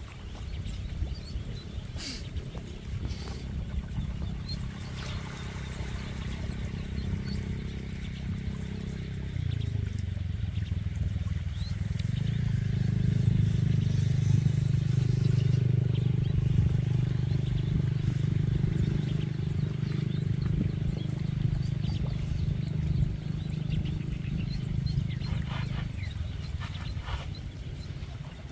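A small engine running steadily. About ten seconds in its pitch drops, then it runs on louder and even, and it fades out a few seconds before the end. A few short sharp sounds come near the start and near the end.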